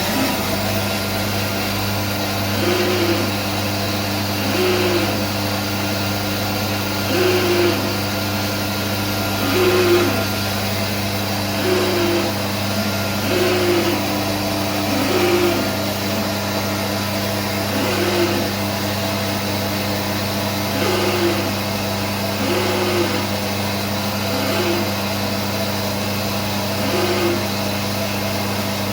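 SCM Minimax S45n bandsaw running with a steady motor hum, and a short noise repeating roughly every two seconds at uneven intervals: the strange noise the owner wants diagnosed.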